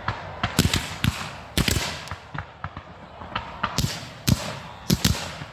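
Aerial fireworks shells bursting: a string of irregular sharp bangs, some in quick pairs, each trailing off in an echo.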